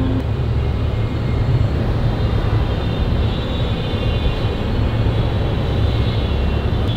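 A steady low rumbling drone, with faint high tones coming in about three seconds in.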